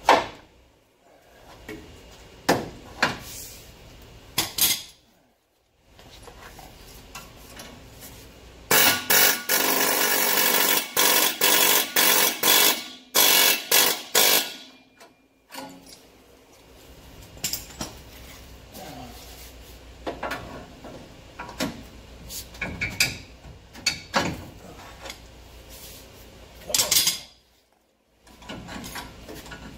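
Pneumatic air hammer rattling in loud bursts of about a second each for several seconds, with single hand-hammer blows on steel before and after. The blows and bursts are aimed at a rust-seized torsion bar key.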